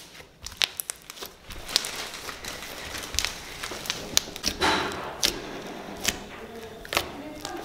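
Homemade black slime squeezed and pressed by hand on a table for a noise test, giving irregular clicking, popping and squelching sounds.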